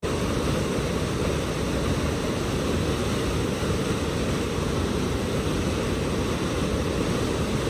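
Waterfall of the Bhagirathi river pouring into a pool, a steady rush of falling water.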